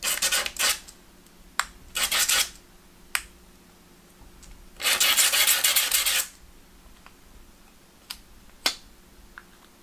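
A small piece cut from a tin can is rubbed on wet-and-dry abrasive paper to round off its sharp edges. The scraping comes in three bursts, the longest about five seconds in, with a few light clicks between.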